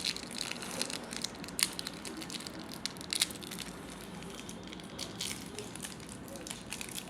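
Wrapper of a Tom Tom menthol sweet crinkling and crackling as it is torn open, a run of irregular small crackles.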